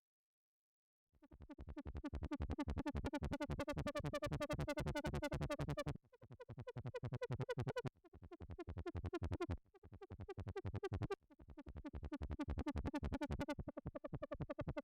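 Behringer UB-1 Micro analogue synthesizer playing a factory preset with no effects: a rapid pulsing tone, starting after about a second of silence, in phrases that swell in loudness and restart several times.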